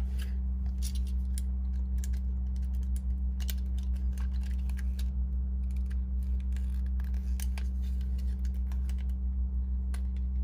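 Irregular light clicks and scrapes of metal blades prying at the plastic housing of an Oral-B electric toothbrush, forcing its hidden snap catches, over a steady low hum.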